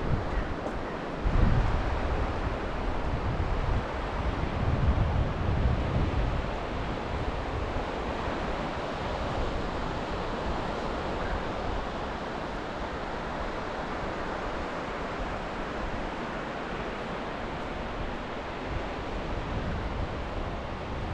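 Sea waves washing onto the shore in a steady surf, with wind buffeting the microphone in gusts during the first several seconds.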